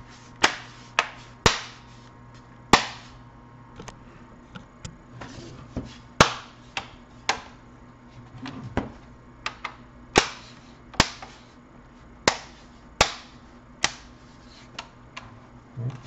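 Plastic case of a Samsung 300E laptop clicking and snapping as it is handled and pressed shut after reassembly: a string of sharp, irregular clicks, one or two a second.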